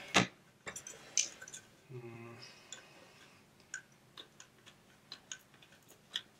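Scattered light clicks and taps of plastic and metal parts as an opened Simpson 260 analog multimeter's case and circuit board are handled, the loudest click just after the start. A brief low hum sounds at about two seconds.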